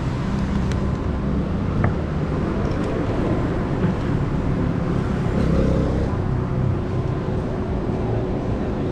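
Steady city street traffic noise: cars and engines running past with a continuous low rumble and a faint steady hum, and one brief click about two seconds in.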